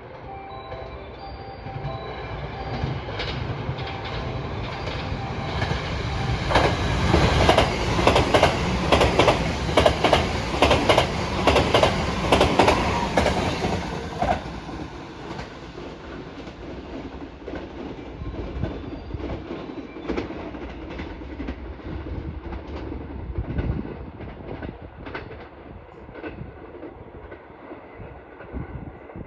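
Limited express electric train passing through the station at speed without stopping: the noise builds, then a loud clatter of wheels over rail joints lasts several seconds before it fades away as the train recedes.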